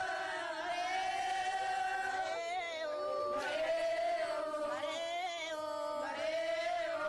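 Voices chanting a song in long, held, slightly wavering notes, moving to a new pitch every couple of seconds.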